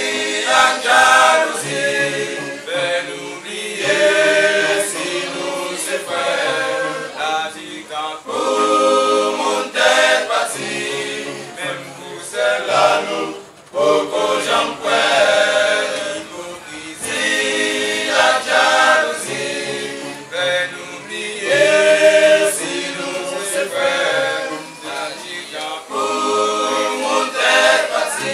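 A men's vocal group singing together a cappella, in sustained sung phrases with no instruments.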